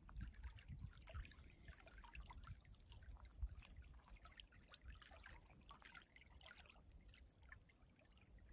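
Faint lapping and trickling of small waves at the edge of a pebble lakeshore.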